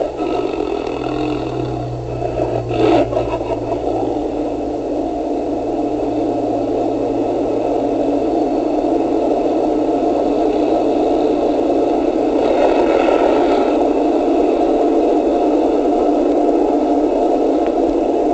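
Steady mechanical rumble with rattling, growing slowly louder over the first several seconds, with a brief clatter about three seconds in. A low hum beneath it fades out after a few seconds.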